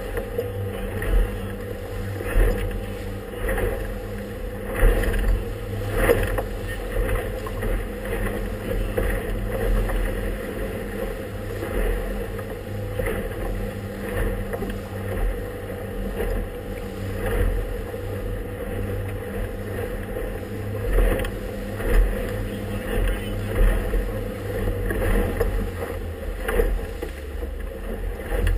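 Small inflatable motorboat running through choppy water: a steady engine drone, with the hull slapping on waves at irregular intervals of a second or two.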